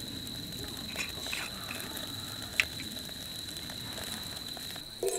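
Glass wine bottle being handled and opened, with a few soft clicks and one sharper click about two and a half seconds in, over a steady faint high-pitched whine.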